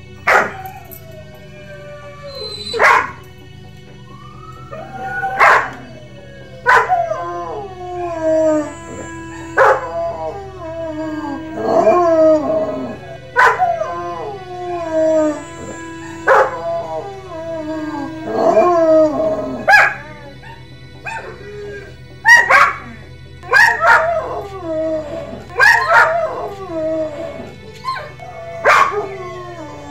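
German Shepherd giving a long run of yelping, howling cries, each call starting sharply and sliding down in pitch, about one every second or two.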